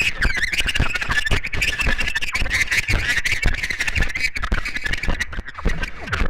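Harsh noise from a guitar-pedal feedback loop, a Chase Bliss Generation Loss MKII fed into a Fairfield Circuitry Hors D'ouvres. A high, wavering, warbling squeal runs over dense crackling and low thumps.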